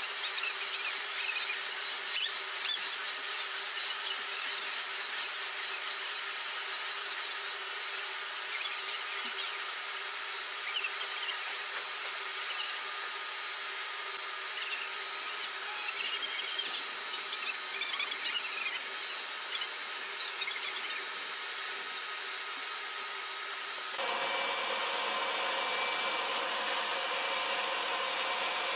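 Steady whine and hiss of turbine engine noise on an airfield flight line, changing abruptly to a different steady hum with more low rumble near the end.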